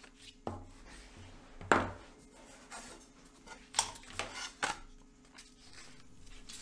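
Tabletop handling noises: a few knocks and taps, with some light rubbing, as a paper template, a wooden ball and a thin birch plywood sheet are moved and set down on a cutting mat. The loudest knock comes just under two seconds in.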